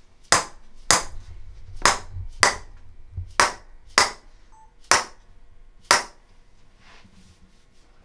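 Chiropractic adjusting hammer: a red mallet knocking on a metal instrument held against the spine, delivering percussive spinal adjustments. Eight sharp knocks, roughly in pairs, stopping about six seconds in.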